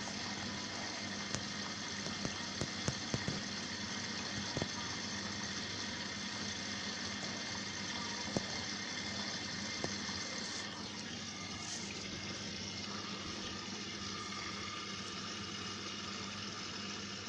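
Indesit washing machine taking in water at the start of a wash cycle: a steady rush of water filling the drum with a faint hum, and a few light clicks in the first ten seconds. The hiss changes slightly about eleven seconds in.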